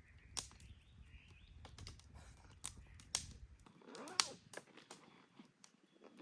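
Wood campfire crackling: scattered sharp pops and snaps, four of them louder, with a short wavering sound about four seconds in.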